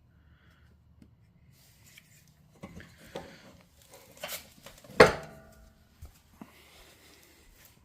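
Metal objects being handled, clinking and clattering, with one loud ringing clang about five seconds in.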